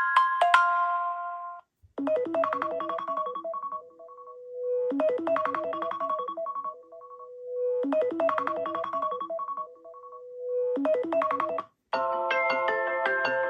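iOS 17 iPhone ringtones. A bell-like chime dies away in the first second or so. After a short gap, a ringtone plays a quick phrase of rapid notes, each phrase trailing off into a held tone, repeating about every three seconds. Near the end a new, denser ringtone begins.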